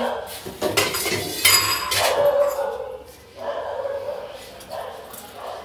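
Steel kitchen utensils clinking and knocking as containers are picked up and poured into a small steel bowl on a steel plate. About two seconds in, a short drawn-out voice-like sound is heard.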